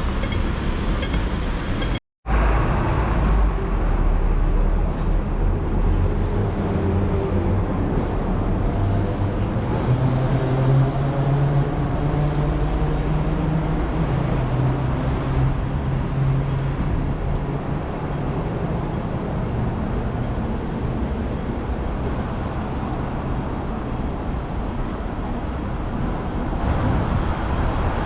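City street traffic, with a motor vehicle's engine running close by and its pitch rising and falling. The sound cuts out completely for a moment about two seconds in.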